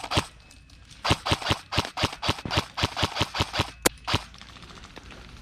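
Airsoft gun firing a quick string of about a dozen single shots, roughly four a second, starting about a second in.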